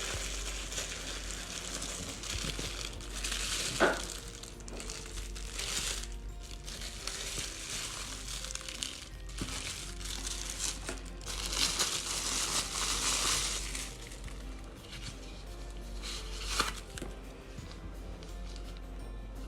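Plastic packaging crinkling and rustling in irregular spells, loudest around a third of the way in and again past the middle, with a couple of sharp taps, over soft background music.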